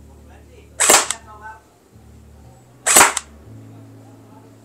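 Tiangong ARP9 v2 electric gel blaster fired on semi-auto through a chronograph: two single shots about two seconds apart, each a short sharp crack of the gearbox cycling.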